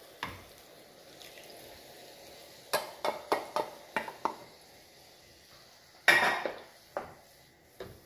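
Wooden spatula knocking and scraping against a metal saucepan and frying pan as cream is scraped out and stirred in: a quick run of sharp taps, then a louder clatter about six seconds in.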